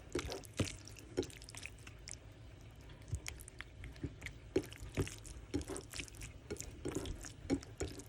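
Eggplant-and-tomato bhorta mixed with mustard oil being mashed and mixed, giving irregular short wet squelches and smacks.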